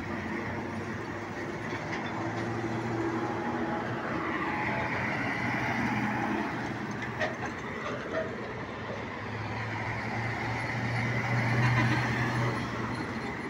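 Heavy diesel grain trucks with drawbar trailers driving past close by: a steady engine drone with road noise, and a couple of sharp metallic knocks about seven seconds in. The drone swells near the end as a truck passes closest.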